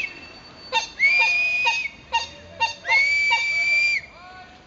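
A whistle blown in a steady rhythm: short toots and two long blasts of about a second each, the call that sets the stroke for a crew rowing a racing sloep.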